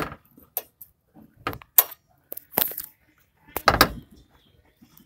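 A string of short knocks and scrapes, the heaviest a little before four seconds in: hands working along the front edge of a 2018 Suzuki Ertiga's bonnet, which is released from its first latch but still held shut by the safety catch.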